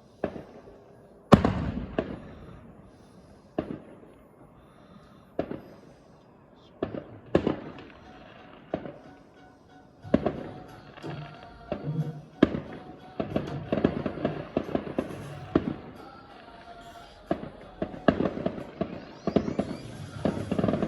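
Fireworks going off: a run of sharp bangs, the loudest about a second in, coming faster and closer together in the second half.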